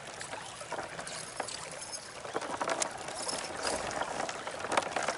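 A small spotted bass splashing at the water's surface as it is reeled in beside a kayak, with scattered sharp clicks and knocks from the reel and hull.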